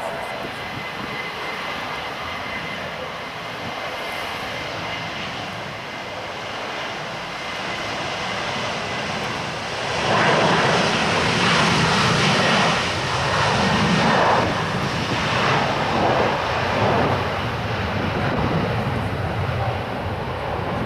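Jet airliner engines: a steady drone with a faint high whine, growing suddenly louder about halfway through and staying loud, with gusty wind buffeting the microphone.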